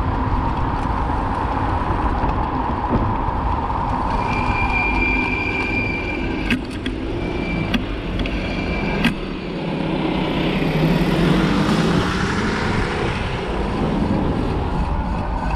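Street traffic heard from a moving bicycle, over a steady low rumble of wind on the microphone. A high, thin squeal sounds for about five seconds midway, broken by three sharp clicks, and a vehicle passes close by about ten seconds in.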